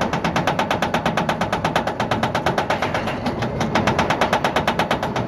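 Goliath roller coaster's chain lift hauling the train up the lift hill: a rapid, even clacking of the anti-rollback ratchet over the rattling chain.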